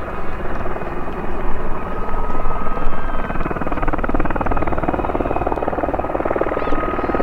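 Two Aérospatiale Gazelle helicopters flying in formation: steady turbine and rotor sound with a constant high whine. The fast rotor beating grows stronger about halfway through.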